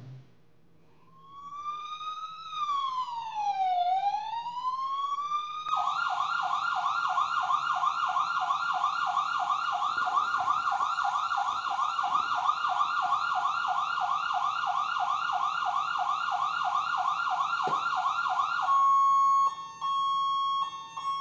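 Electronic siren played loud as a wake-up call. It starts with a slow wail that rises, falls and rises again, switches about six seconds in to a rapid yelp, and near the end changes to a steady held tone.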